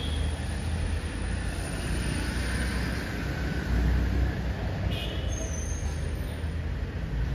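Steady road traffic noise: a low rumble of passing vehicles over an even hiss, with a brief high chirp about five seconds in.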